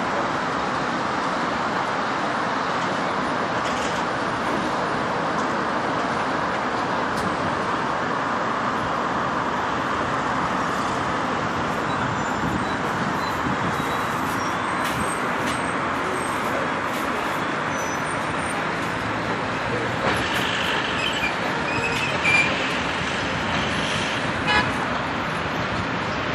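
Steady hum of city street traffic heard from high above, a continuous wash of engines and tyres. A few short car horn toots sound in the last several seconds.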